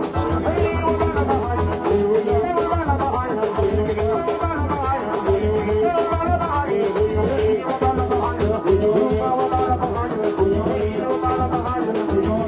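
Latin dance music with a steady pulsing bass beat and melody over it.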